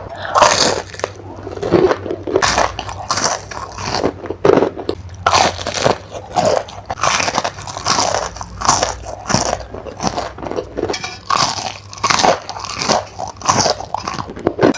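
A person biting and chewing crunchy fried food, a steady run of crisp crunches about once or twice a second.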